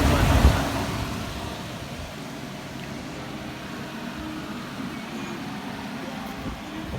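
Electric floor fan heater blowing air. The rush of air falls away over the first couple of seconds to a steady low hiss, with a brief knock about half a second in.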